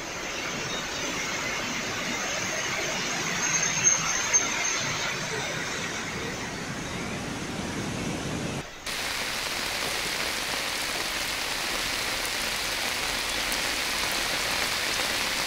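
Heavy rain and rushing water: a steady hissing rush that breaks off for a moment about eight and a half seconds in, then carries on brighter and hissier.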